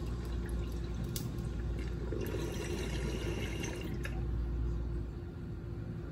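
Water bubbling in a glass mason jar bong as smoke is drawn through it, a steady gurgle that eases off about five seconds in. A single click about a second in.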